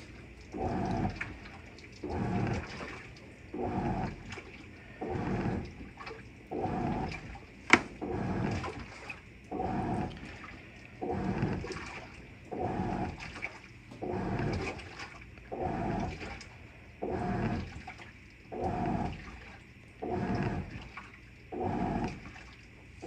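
Avanti top-loading washing machine agitating a load in water: the agitator motor hums and the water sloshes in regular strokes about every second and a half. One sharp click about eight seconds in.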